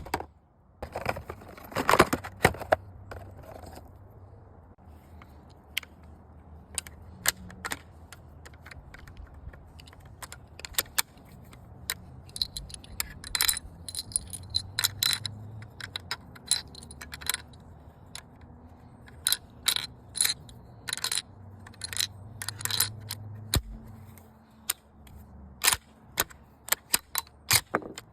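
Small metal pieces clicking and clinking together as they are handled, in irregular single clicks with a denser rattle about two seconds in.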